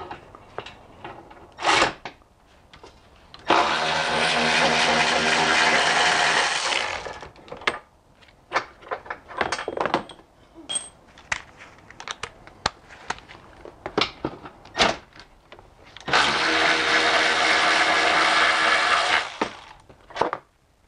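Cordless power driver spinning out the two T50 Torx bolts at the bottom of a BMW E46 front bumper: two steady runs of about three seconds each, the first a few seconds in and the second about two-thirds of the way through. Short clicks and knocks of the tool against the bumper and fasteners come in between.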